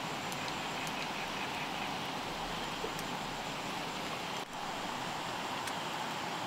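Steady outdoor background hiss with a few faint clicks, broken by a brief dip about four and a half seconds in.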